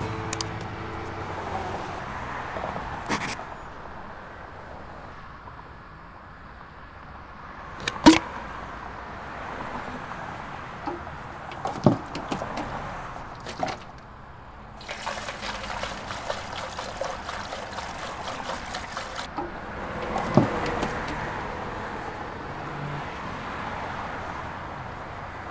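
Gas-pump nozzle filling a boat's fuel tank: fuel rushes into the tank for a few seconds in the second half and then stops abruptly. Several sharp clicks and knocks come before and after it.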